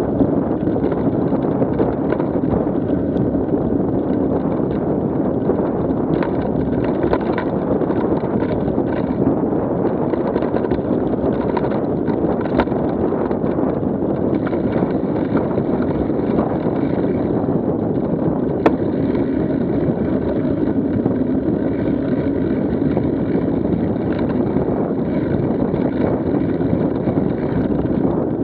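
Mountain bike rolling over dirt singletrack on knobby tyres, heard from a camera mounted on the bike as a steady rumble mixed with wind on the microphone. Scattered small clicks and rattles, with one sharper click about two-thirds of the way through.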